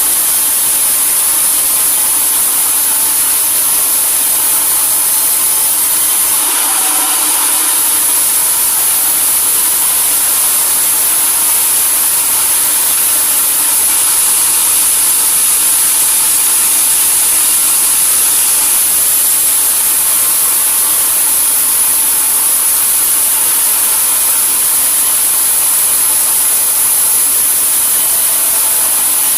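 Sawmill machinery running steadily: a constant loud mechanical noise with a steady high-pitched hiss over it.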